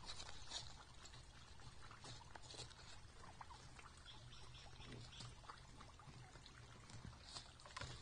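Wild turkeys feeding: faint, scattered ticks and rustles of pecking at seed and of feet stepping and scratching in dry forest litter.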